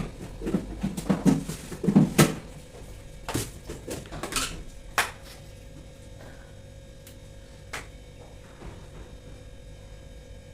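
Objects being handled: a flurry of knocks, clatter and rustling over the first five seconds or so, then quieter, with a few single clicks. A faint steady hum runs underneath.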